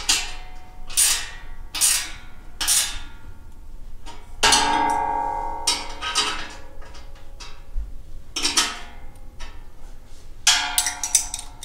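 Steel welding table clanking: a tool and the tabletop's metal pivot parts knock against each other about eight times, each knock ringing on. The loudest comes about four seconds in and rings the longest.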